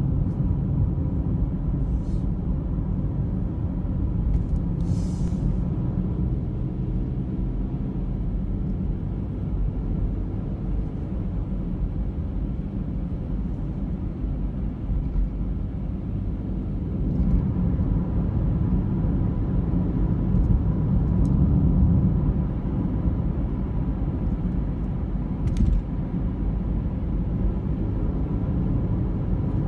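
Car driving along a road: a steady low rumble of road and engine noise that swells a little about two-thirds of the way through, with a few faint ticks.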